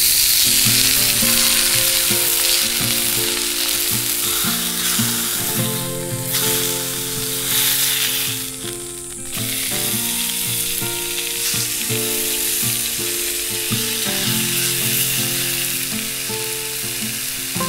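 Beef steaks sizzling as they fry in a hot frying pan, a continuous crackling hiss that dips briefly about halfway through, with soft background music underneath.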